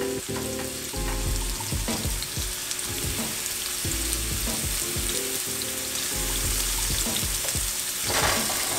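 Seasoned mahi-mahi strips sizzling steadily in hot olive oil in a nonstick frying pan, with background music under it.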